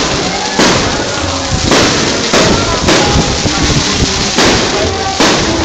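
Aerial firework shells bursting, a sharp bang roughly every second, about seven in all, over a steady background wash.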